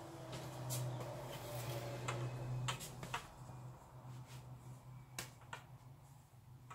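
Scattered light clicks and taps of kitchen utensils being handled, about seven in all, over a low hum that is strongest in the first three seconds.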